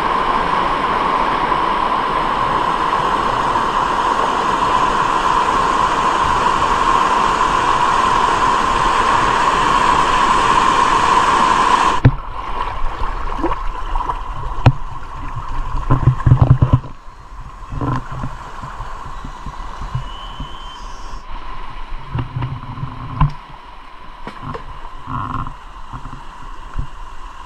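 River water: a steady loud rush of water that cuts off abruptly about twelve seconds in. What follows is quieter gurgling water broken by scattered knocks and short low thumps.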